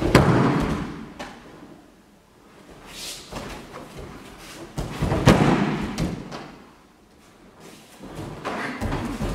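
Thuds of karateka hitting the dojo mats during a takedown, with gi cloth rustling and snapping. The heaviest landing comes right at the start and another loud impact comes about five seconds in, with lighter knocks between.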